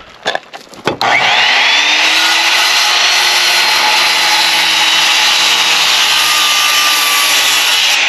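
Corded circular saw starting up about a second in, after a few light knocks, then running steadily as it cuts across the end of a wooden rafter board along a marked pitch line.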